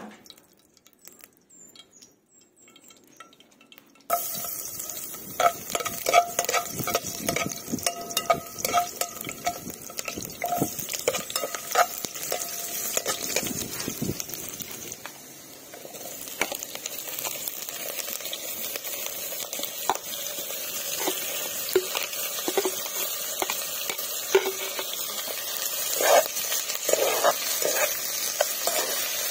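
Sliced onions frying in hot oil in a metal pot over a wood fire, sizzling steadily, with a utensil scraping and clicking against the pot as they are stirred. The sizzle starts abruptly about four seconds in, and near the end sliced bitter gourd (ampalaya) is dropped into the pot with a few knocks.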